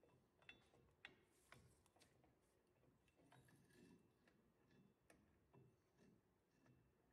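Near silence with faint metallic clicks and a soft rustle as a drum brake shoe assembly, held together by its springs and adjuster, is handled and worked onto the backing plate around the axle hub. The clicks come mostly in the first two seconds, with one more about five seconds in.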